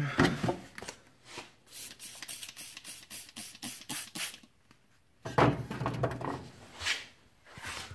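Trigger spray bottle of soapy water pumped in a fast run of about ten squirts, roughly four a second, followed by rubbing and handling noise.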